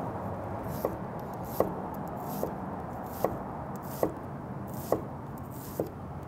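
Chef's knife mincing a shallot on a wooden cutting board: an even run of seven knocks of the blade on the board, a little under a second apart, each with a short crisp slicing sound.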